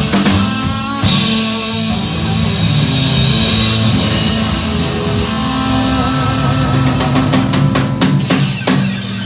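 Live rock band (electric guitars, bass and drum kit) playing an instrumental passage without vocals. A cymbal crash lands about a second in, and a quick run of drum hits comes near the end.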